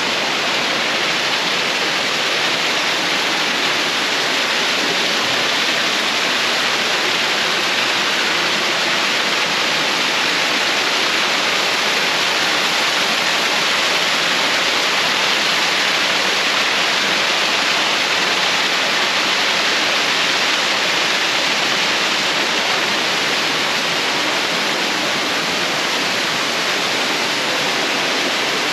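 Waterfall: water pouring and splashing in a steady, even rush.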